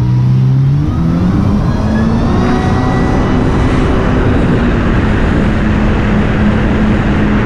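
Jet ski engine running at speed, its pitch rising in the first second as it accelerates and then holding steady, under a heavy rush of wind and water noise.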